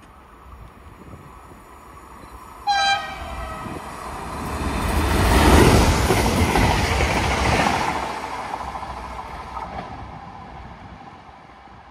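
Trenitalia ETR 104 'Pop' electric multiple unit sounds one short horn blast, its pitch sagging at the end, and then runs past without stopping. The rumble of its wheels on the rails swells to a peak about halfway through and fades as it pulls away.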